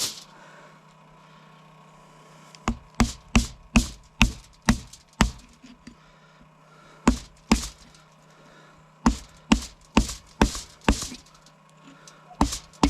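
A blade chopping through the bone of a whole hog carcass, splitting it open. The strikes come sharp and cracking, in runs of quick blows about two a second with pauses between.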